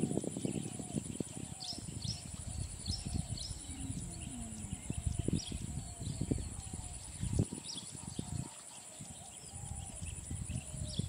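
Steady high-pitched insect buzz with scattered short bird chirps over a low, uneven rumble of outdoor noise.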